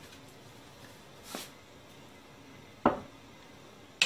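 Salt poured from a canister into a stainless steel pot of raw vegetables, a short soft hiss about a second in. A single knock follows near three seconds in, and a sharper click right at the end, as the hand works at the pot.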